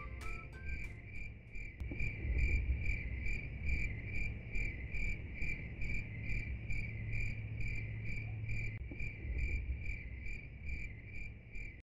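Insect chirping in a steady, even rhythm, about three chirps a second, over a low rumble. It cuts off suddenly near the end.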